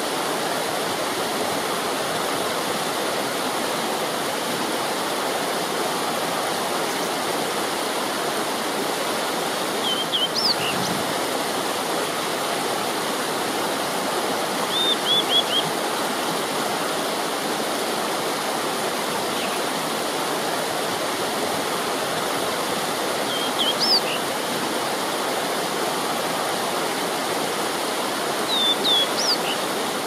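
Shallow stream running fast over rocks, a steady rushing babble. Short, high bird chirps break in four times, in brief bursts of a few notes each.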